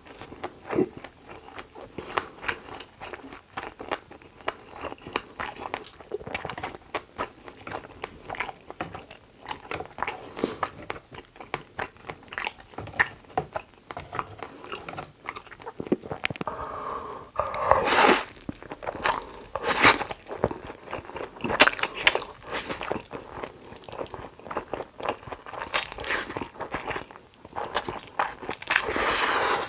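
Close-miked mukbang eating: steady chewing and crunching with quick wet mouth clicks, growing louder in several stretches in the second half.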